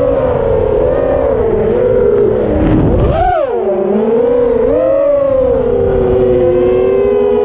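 Electric motors and propellers of a 6S FPV racing quadcopter whining as heard from its onboard camera, the pitch wavering with the throttle, swooping up sharply about three seconds in, then dropping and settling lower and steadier. A rush of wind noise runs under it until about three seconds in. The quad's motors twitch, which the pilot puts down to ESC or motor trouble.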